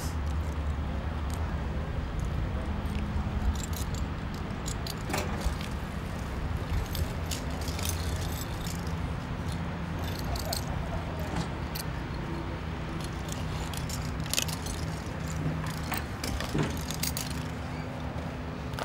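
A truck engine idling steadily, with scattered metallic clinks and jingles from a lineman's climbing gear: belt hardware, snaps and steel climbing gaffs being buckled on and the pole strap hooked around the pole.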